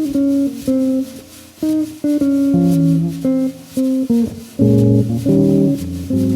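Bebop jazz trio playing: short plucked single notes and chords over low bass notes, without drums.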